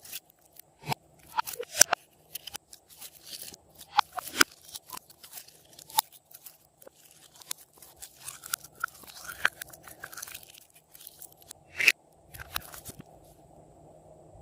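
Slime being squeezed and kneaded by hand, giving off irregular sticky clicks and pops, with a couple of louder snaps just under 2 seconds in and about 12 seconds in.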